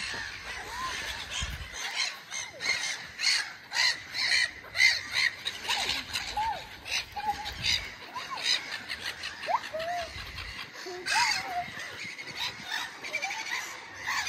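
A flock of gulls calling, many short harsh cries overlapping in quick succession as the birds crowd in to be fed.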